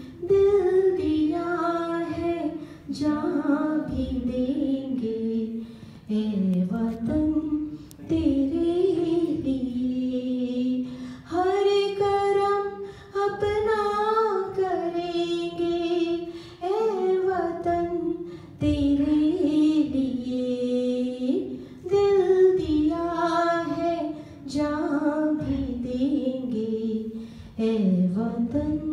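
A woman singing a Hindi song solo into a microphone, in long sung phrases with short pauses for breath between them.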